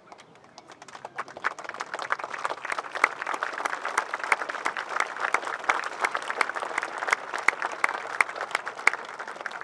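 Crowd applauding, building up about a second in and thinning out near the end, with one person's louder claps close by standing out from the rest.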